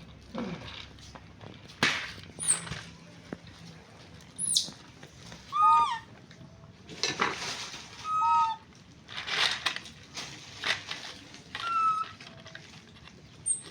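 A baby monkey giving short, squeaky calls that rise and fall, repeated several times, between short bursts of scuffling noise.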